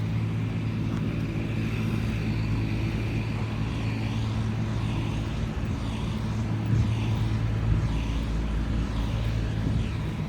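A car driving: a steady low engine and road hum.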